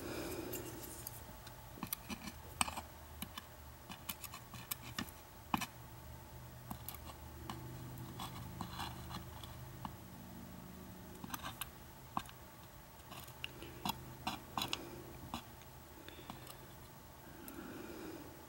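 Light, irregular clicks and taps of metal tweezers picking up and setting down tiny lock pins in a pin tray.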